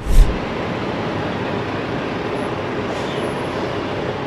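Truck driving slowly, steady engine and road noise heard from inside the cab, with a sudden loud thump just after the start.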